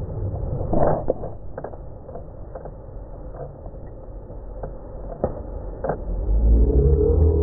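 Camera handling noise: the microphone rubbing and bumping against clothing, giving a low rumble with scattered knocks, the loudest about a second in. A louder low rumble comes in about six seconds in.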